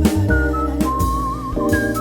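Background music: a high, pure lead melody with vibrato over held chords, a bass line and regular drum hits.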